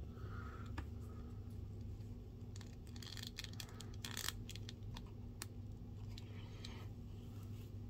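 Faint clicks and scrapes of small plastic action-figure parts being handled, with a cluster of clicks about three to four seconds in, over a steady low hum.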